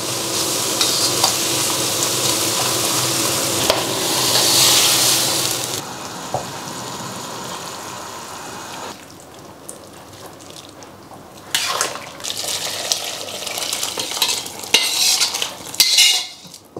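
Pickled mustard greens frying in oil in an iron wok while a metal spatula stirs them. The sizzle swells around four to five seconds, then falls to a quieter simmer once liquid is in the wok. Later the spatula scrapes and knocks against the wok.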